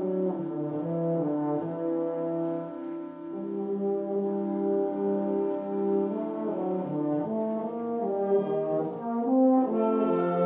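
Concert wind band playing a slow passage of held chords, with brass to the fore, the notes moving in slow steps in the middle and low range.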